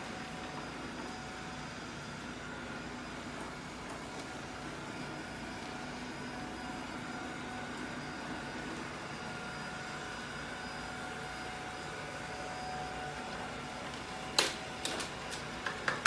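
ILIFE robot vacuum cleaner running, a steady hum of its suction fan and brush motors with a few faint whining tones. About fourteen seconds in there is a sharp knock, followed by a few lighter clicks.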